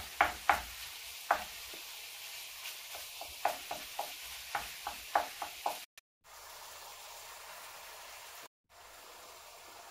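Minced beef sizzling as it browns in a hot pan while a utensil stirs and breaks it up, knocking sharply against the pan again and again for about six seconds. After that the knocking stops and only steady sizzling remains, broken twice by abrupt cuts.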